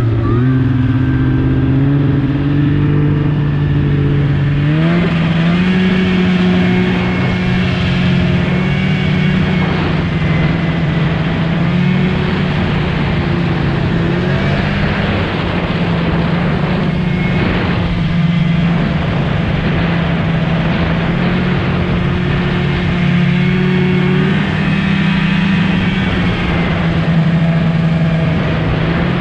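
Snowmobile engine running at trail speed, heard from the rider's seat. Its note steps up about five seconds in and then rises and falls a little with the throttle, over an even rushing noise.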